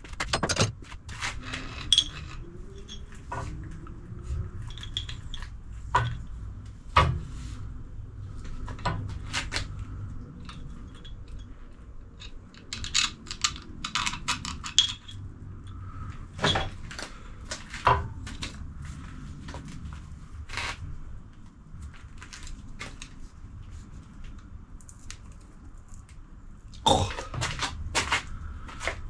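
Hand tools and metal coilover strut parts clinking and knocking irregularly as the strut's top fittings are worked loose and handled, with a few louder clanks.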